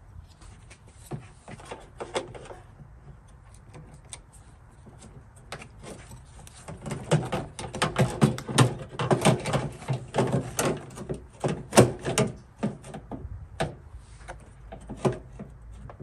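Clicks, knocks and clatter of a power liftgate latch actuator being handled and fitted into place in the liftgate, scattered at first and then coming thick and fast for several seconds in the middle.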